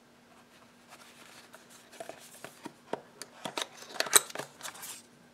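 Small cardboard product box handled and its end flap worked open by hand: a string of light clicks, scrapes and paper rustles starting about two seconds in, loudest about four seconds in, then stopping.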